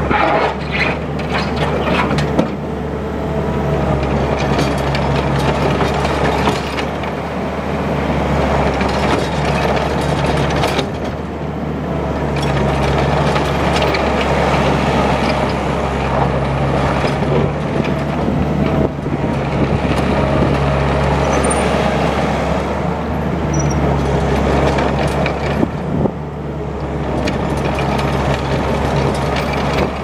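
Mustang MTL20 compact track loader's diesel engine running steadily under varying load as the machine drives and turns on gravel on its rubber tracks.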